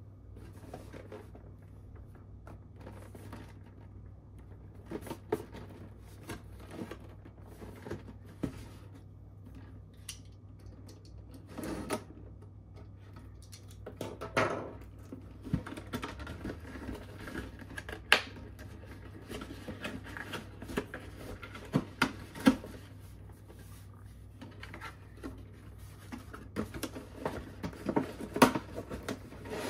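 A cardboard figure box being handled and cut open with a utility knife: scattered taps, knocks and scrapes of the cardboard with rustling as the flaps are opened, the sharpest knocks a little under halfway and near the end. A low steady hum runs underneath.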